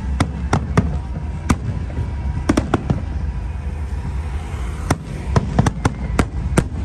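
Aerial firework shells bursting: more than a dozen sharp bangs at irregular intervals, some coming in quick clusters, over a steady low background rumble.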